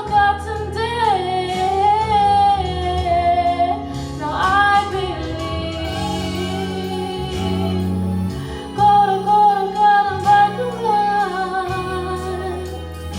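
Female singer performing a Korean ballad over instrumental accompaniment, holding long sustained notes with vibrato over steady low chords.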